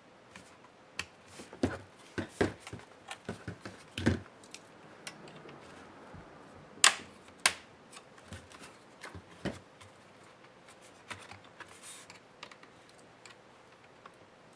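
Irregular clicks and taps of a small screwdriver and the HP Stream 13 laptop display's plastic bezel and metal hinges being handled during disassembly. A cluster of clicks comes in the first four seconds, the two sharpest about seven seconds in, then sparser ones.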